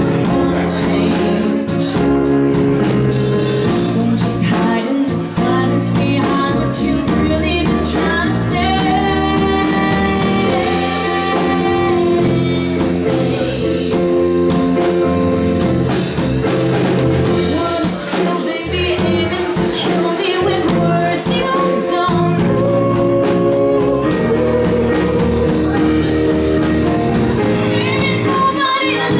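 Live band playing: keyboards, bass guitar and drum kit, with a woman singing over them.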